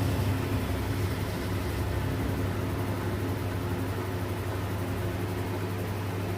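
A steady mechanical hum from a running machine, with a strong low drone and no change in pitch.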